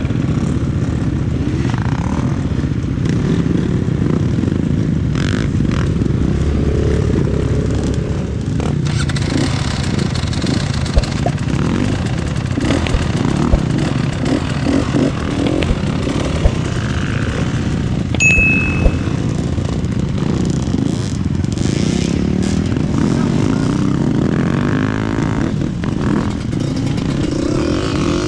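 Trail motorcycle engine running and revving up and down as it rides over rough ground, with a few sharp knocks and clatters.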